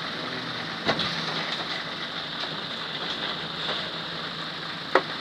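Heavy engine running steadily while a backhoe bucket dumps dirt and brush into a dump truck's bed, with a gritty, rain-like spill of soil. Two sharp knocks, about a second in and near the end.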